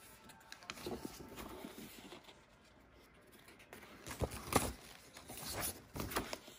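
Pages of a spiral-bound paper planner being turned by hand: a run of paper swishes and flaps, with the loudest turns about four to six seconds in.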